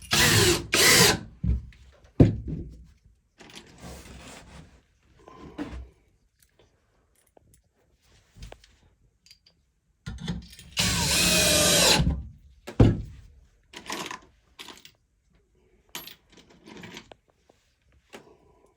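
Power drill running in short bursts: two close together at the start and one more, about a second long, near the middle. Knocks and clicks of tool handling fall between them.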